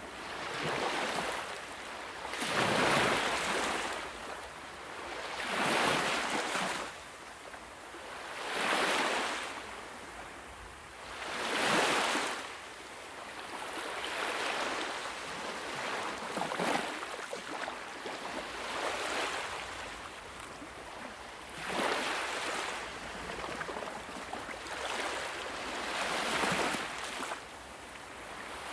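Ocean waves breaking and washing up on a beach, one surge after another, each swelling and then falling back, at first about every three seconds.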